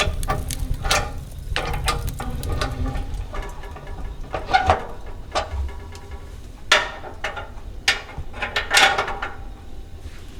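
An irregular series of sharp clicks and knocks, some with a short ringing tone, from hard objects being handled, over a steady low rumble; the loudest knocks come in a cluster in the second half.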